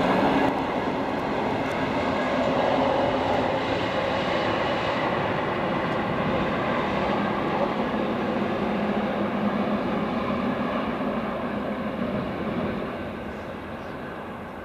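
Electric train passing on the railway line, a steady rumble with a faint steady whine over it, fading away over the last couple of seconds.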